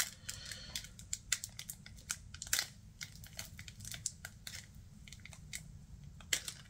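Foil wrapper of a Pokémon card booster pack crinkling in irregular crackles and ticks as it is handled and pulled at to tear it open.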